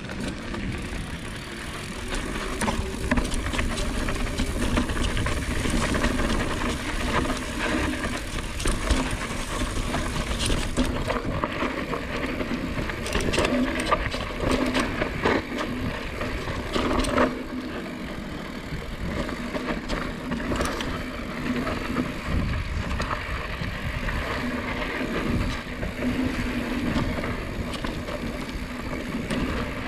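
Mountain bike riding down a dirt trail: tyres running over dirt and rocks, with the chain and frame rattling and knocking irregularly over the bumps.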